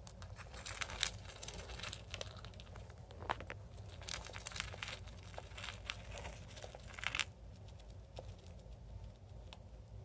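Paper bedding rustling and crinkling as a small pet burrows and digs through it in a plastic tub, in bursts of scratchy crackling that die down about seven seconds in.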